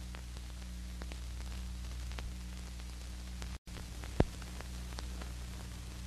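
Hiss and steady low hum of an old optical film soundtrack, with scattered faint crackles. The sound drops out completely for an instant about three and a half seconds in, and a sharp pop follows just after.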